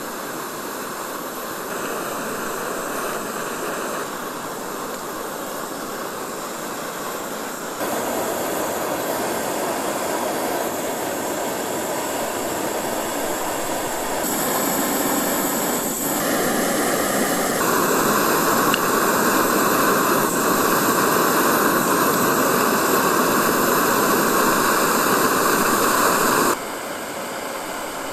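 Steady hissing sizzle of food frying in a skillet over a gas canister camp stove, jumping abruptly louder and quieter several times, loudest for most of the second half.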